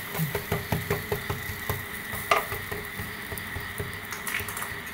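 Egg omelette frying in coconut oil in a pan, sizzling steadily, while a wooden spatula turns and presses it, scraping and tapping against the pan in quick ticks, with a sharper knock about two seconds in.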